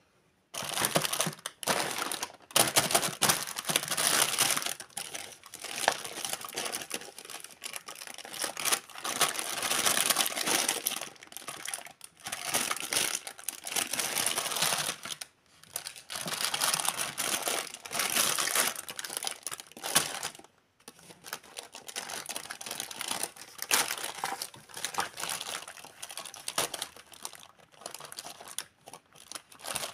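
Thin clear plastic toy packaging crinkling and rustling as hands handle and open a bagged plastic toy tea set, in uneven bursts with a few brief pauses.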